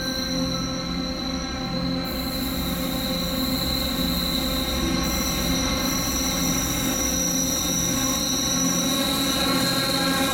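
Railway wheels squealing against the rails as the train runs through a curve: a steady, high-pitched squeal of several held tones over the low rumble of the moving train.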